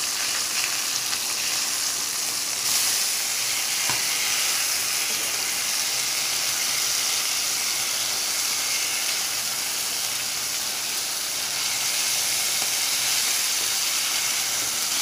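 Fish pieces sizzling as they fry in hot mustard oil in a pan, the sizzle growing louder about three seconds in. A wooden spatula works the fish, with a light tap against the pan about four seconds in.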